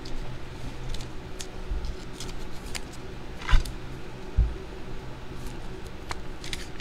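Trading cards and their plastic sleeves being handled on a table: light clicks and rustles, with two dull knocks about three and a half and four and a half seconds in, over a faint steady low hum.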